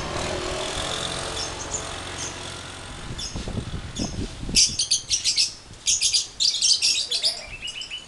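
Caged lovebirds chattering: about halfway in, several bursts of rapid, stuttering high-pitched chirps, each up to about a second long, over a low background rumble that fades in the first few seconds.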